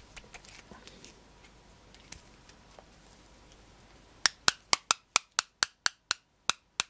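Thin nylon fishing line handled and then jerked taut again and again between the hands, ending in a fast run of sharp snaps, about five a second, in the last few seconds.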